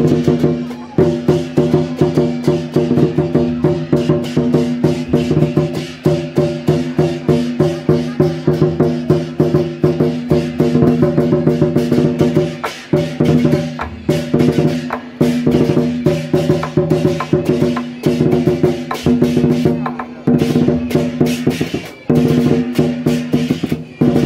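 Loud traditional temple-procession music: fast, continuous percussion with a wood-block-like clatter and drums, over held pitched tones that break off briefly every few seconds.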